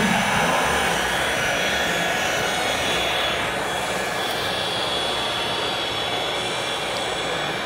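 Electric-driven hydraulic pump of a 1:14-scale radio-controlled Komatsu PC800 excavator whining steadily while the arm and bucket work, a run of high steady tones over a hiss.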